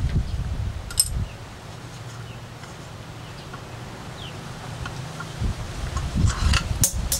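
Small parts being handled on an outboard vapor separator tank as a threaded fitting is turned into its casing: a sharp click about a second in, a quiet stretch, then a few clicks and rattles near the end.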